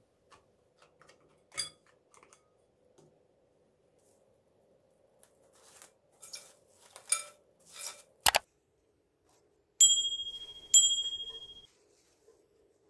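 Plastic cling film rustling as it is pulled over a glass mixing bowl, then a sharp click and two bright ringing dings about a second apart, each fading away.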